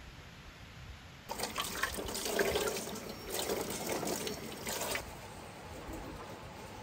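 Tap water splashing onto a dish held under the faucet as it is rinsed by hand in a stainless steel sink, without detergent. The water starts about a second in and eases off about five seconds in.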